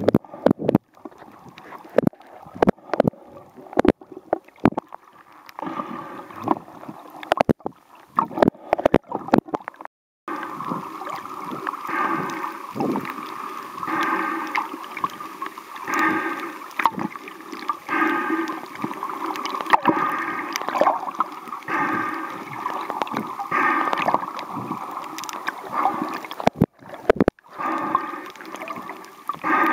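Underwater sound picked up by a waterproof compact camera while snorkelling: water moving against the camera, with scattered clicks and crackles. About ten seconds in, a muffled whooshing starts that swells regularly about every two seconds.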